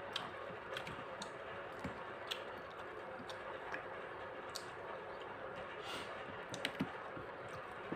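Quiet eating by hand from a plate: scattered soft clicks and smacks of fingers picking up rice and greens and of chewing, a few more together near the end, over a faint steady background hiss.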